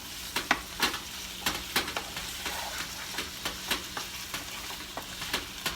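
Chicken pieces sizzling steadily as they brown in a frying pan, with frequent irregular clicks and scrapes of a utensil stirring them against the pan.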